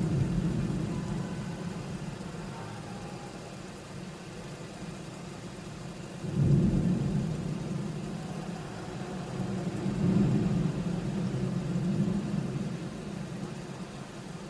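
Low, rumbling arena noise, broken about six seconds in by a sudden loud boom from stage pyrotechnics going off, with two more swells of rumble after it.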